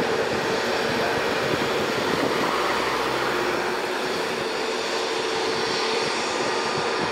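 Airbus A320 airliner's jet engines running at low thrust while it taxis on the runway, a steady rushing hum with a constant whine.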